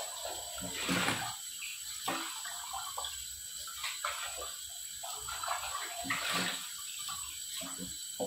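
Kitchen tap running onto a stainless-steel pressure cooker as it is rinsed in the sink, with water splashing off the pot and a few louder splashes and knocks at irregular moments.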